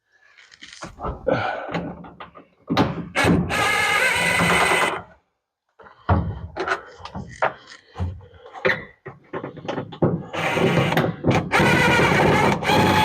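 Screws being taken out of the interior trim around a car's rear window: scattered clicks and knocks, with two longer steady whirring stretches of about one and a half and two and a half seconds, like a small power screwdriver running.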